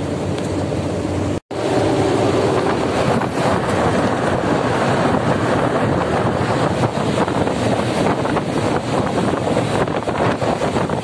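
Diesel lorry running at highway speed, first heard from inside the cab as a steady engine hum. After a brief cut-out about a second and a half in, loud wind buffets the phone's microphone held out the side window, over the engine and road noise.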